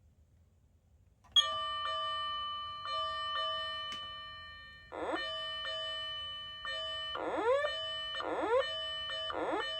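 Electronic fire-engine warning-bell tone from a Patlite SAP-500FBVZ siren amplifier, a ringing clang struck about twice a second, starting about a second in. From about halfway, rising siren sweeps are laid over the bell, repeating faster and faster toward the end.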